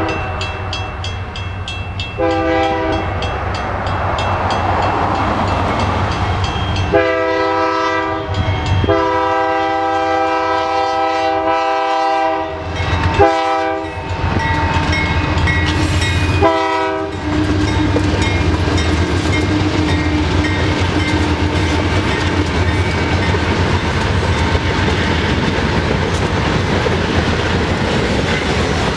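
Union Pacific freight train led by three GE C44-9W diesel locomotives sounding its air horn for the grade crossing, about five blasts in the first seventeen seconds, the longest about three and a half seconds, over the low rumble of the diesels. After the horn stops, loaded gravel hopper cars roll steadily past on the rails.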